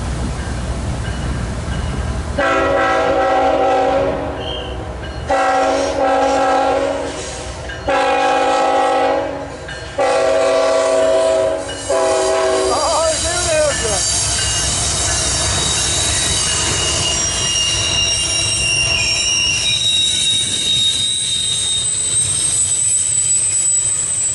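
A CSX freight train's locomotive horn sounds four long blasts. The double-stack intermodal train then rolls past with a steady rumble, its wheels squealing in high thin tones that build toward the end.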